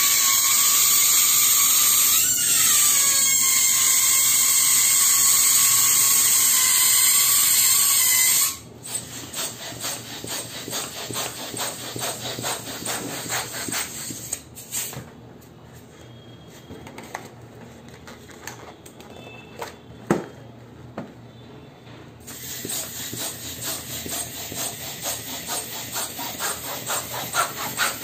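A small electric motor, most likely the balloon pump, runs with a steady whine for about eight seconds, then cuts off. After that, latex balloons rub and squeak under the hands, with quicker, busier rubbing near the end.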